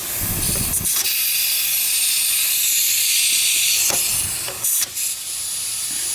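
Compressed air hissing steadily through an air chuck held on a car tire's valve stem as the tire is inflated. There is a dull thud as the chuck goes on, and the hiss briefly breaks twice about four to five seconds in.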